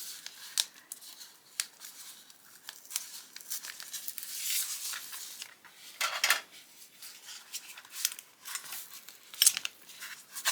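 An advent calendar package being opened by hand: packaging rustling, tearing and crinkling, with many irregular sharp clicks and snips.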